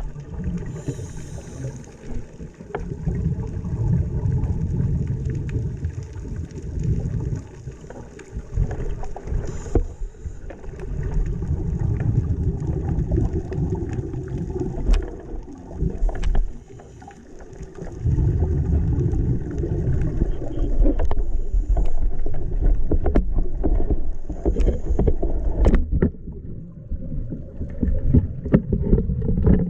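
Muffled low rumbling and bubbling of seawater around a diver's camera just after a boat entry, swelling and fading, with scattered sharp clicks.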